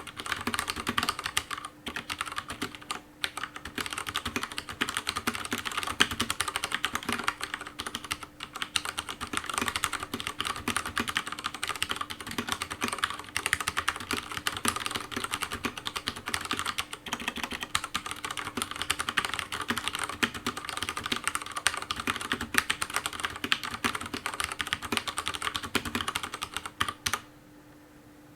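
Akko 3087 mechanical keyboard with Cherry MX Brown switches and PBT keycaps being typed on fast: a dense, steady stream of rounded key clacks without a click, stopping abruptly near the end.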